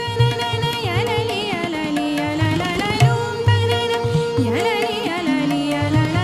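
Indian classical-style background music: a held drone under a melody that bends and wavers, with low drum strokes keeping a beat.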